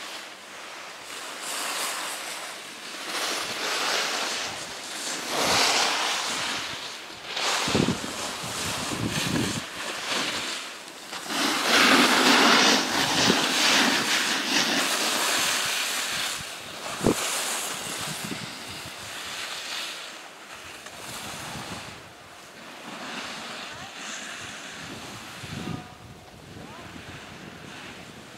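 Skis scraping and sliding over hardpacked, groomed snow: a rushing hiss that swells and fades every few seconds. There is a single sharp knock about seventeen seconds in.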